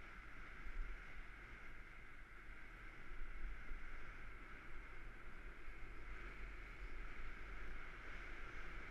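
Wind buffeting the microphone in a steady low rumble, over an even road noise from the moving camera. It gets a little louder about three seconds in.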